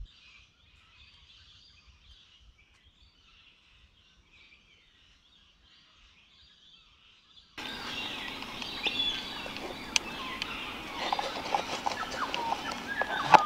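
Outdoor bush ambience: at first faint high chirping, then, from about seven and a half seconds in, much louder bird calls and chirps with a few sharp clicks.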